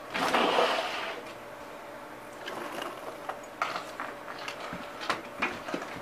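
A door pushed open, with a loud rush of noise lasting about a second at the start, then scattered clicks and knocks.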